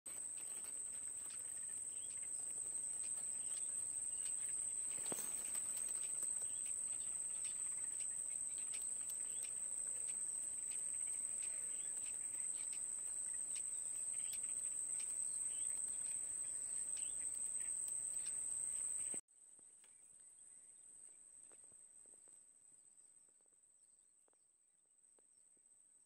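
Steady, high-pitched insect drone with faint scattered ticks; it drops abruptly to much quieter about nineteen seconds in.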